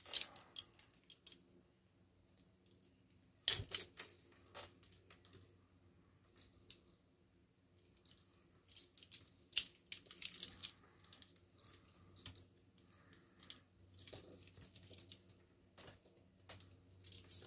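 Several pairs of steel handcuffs worn on the wrists clinking and jangling against each other as the hands move, with scattered small metal clicks. A louder clack comes about three and a half seconds in, and the clinking is busiest in the second half.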